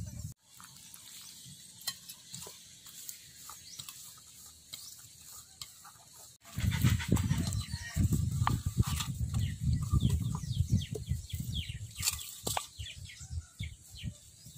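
Birds chirp in short falling calls throughout. From about six and a half seconds in, louder close rustling and scraping comes in as hands mix flour in a steel bowl and press it into a husked coconut.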